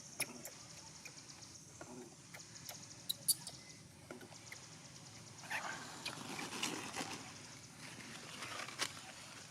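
Newborn monkey crying in short squeaky calls from about halfway through, after a few sharp clicks.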